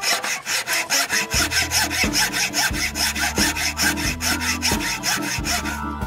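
Hacksaw cutting through a plastic garage-door cable cone, in quick, even back-and-forth strokes. The cut is taking the hex top off the cone so that it matches the others.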